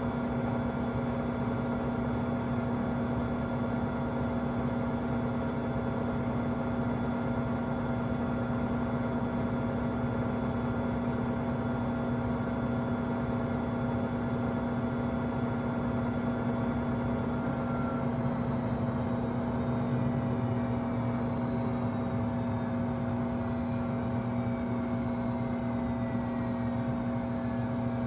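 Samsung front-load washer giving off a loud, steady buzz. The owner says it makes this louder buzz when the drain runs with no water left to drain. A faint falling whine sounds underneath from about two thirds of the way in.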